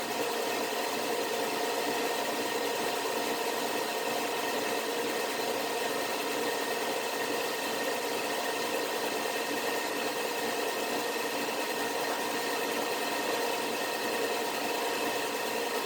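A woodworking power tool running steadily: an even motor hum with a steady whine and hiss that does not change.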